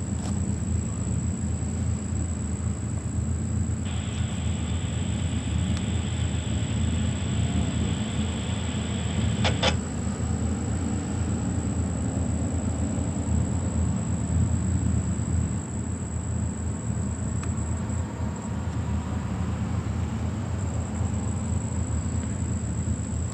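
Steady low rumble of road vehicles, with a brief sharp sound about ten seconds in.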